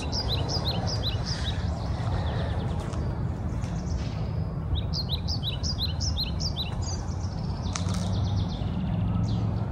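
A songbird singing a quick run of short, high, falling notes, twice: near the start and again about five seconds in. Under it runs a steady low rumble.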